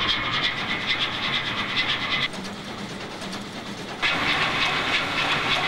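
A straight-eight, two-stroke supercharged diesel of about 24,000 horsepower running: a steady mechanical din with a fast rhythmic pulse. It drops in level for a couple of seconds midway, then comes back.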